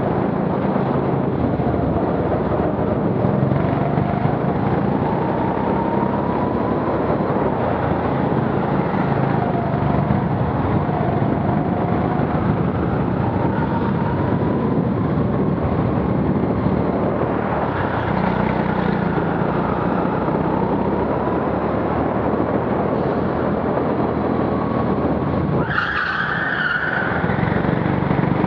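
Go-kart engine running hard, its pitch rising and falling with the revs through the corners, heard from the driver's seat. Near the end, a brief high tyre squeal as the kart slides.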